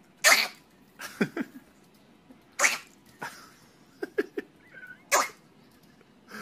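A pet making a string of about six short, sharp sneeze-like bursts, roughly one a second, the first the loudest, with a few brief falling squeaks after some of them.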